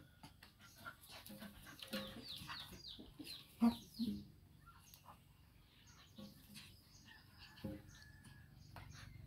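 A dog play-fighting with a young macaque, giving short low dog sounds, the loudest about three and a half and four seconds in. Small birds chirp throughout with quick falling calls.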